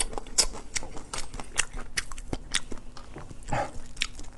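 Cooked hermit crab being chewed and its shell pulled apart by hand, close to the microphone: a quick, irregular run of sharp crunching clicks.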